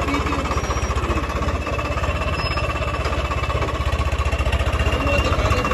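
Swaraj 855 FE tractor's three-cylinder diesel engine running steadily, with an even, rapid beat of firing pulses.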